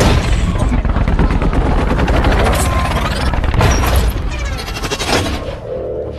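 Transformers-style robot transformation sound effect: a dense rattle of rapid mechanical clicks over a low rumble, with a heavy hit about three and a half seconds in, thinning out near the end.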